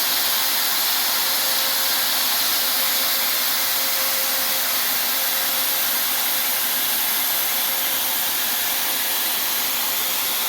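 Electric ULV cold-fogging sprayer running steadily: a constant blower rush with a hiss of the spray and a faint steady whine.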